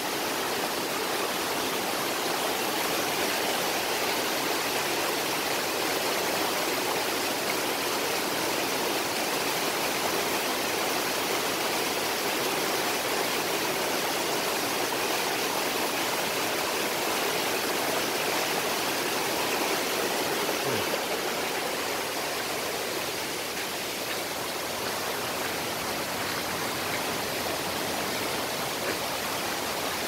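Shallow rocky forest stream rushing over stones and down a small cascade: a steady rush of water, a little fainter in the last third.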